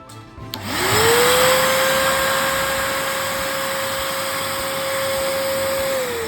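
Vacuum cleaner motor, a newly fitted original replacement, switched on with a click and spinning up quickly to a steady whine over rushing air: a test run after the motor change. Near the end it is switched off and the whine falls as the motor winds down.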